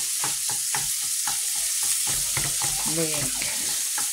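Minced chicken frying with onion and peppers in a frying pan, a steady sizzle, while a wooden spatula breaks the meat apart, scraping and tapping on the pan two or three times a second.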